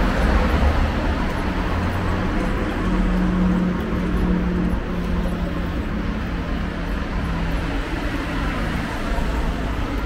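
Road traffic noise: a car passes on the street alongside at the start and fades, over a steady low hum.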